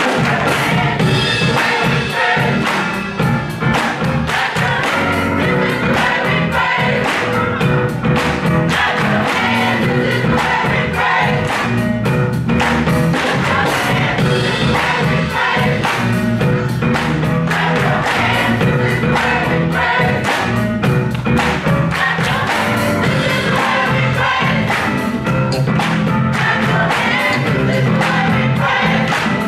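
Gospel mass choir singing a full-voiced song, with hand clapping keeping a steady beat.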